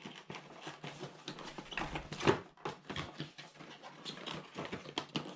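A cardboard box being opened and handled by hand: scattered rustles, scrapes and light taps as the flap and the cardboard insert are pulled out, loudest a little after two seconds in.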